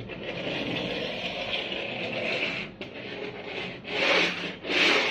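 Small plastic Kinder Joy toy skateboard pushed back and forth across a tabletop, its plastic wheels rolling with a continuous rasping rumble for nearly three seconds, then two louder short rolls near the end.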